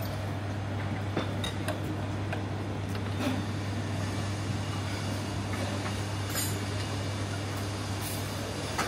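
Buffet room ambience: a steady low hum with a few light clinks of dishes and glassware scattered through it.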